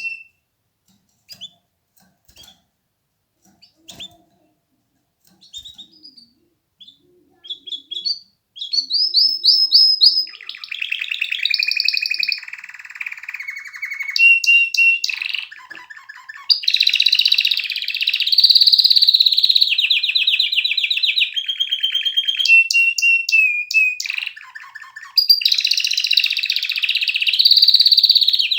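Domestic canary singing. A few short, scattered chirps at first, then about eight seconds in it breaks into continuous song: rapid rolling trills alternating with clear, steady whistled notes.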